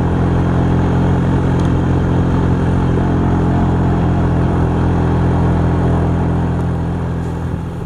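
Large three-bladed wind turbine running close by: a steady low mechanical hum over the rush of wind on the microphone.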